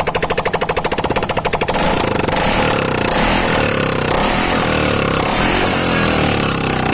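TVS Jupiter ZX scooter's 110 cc single-cylinder four-stroke engine running with the silencer removed: a loud, rapid open-exhaust popping at idle. From about two seconds in the pops run together into a steady rasp as the engine is revved.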